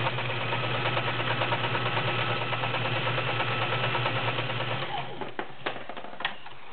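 Mid-1980s Kenmore 385.1232 sewing machine running steadily, its needle stitching rapidly on a zigzag whose width is being changed while it sews. The machine stops about five seconds in, followed by a few light clicks.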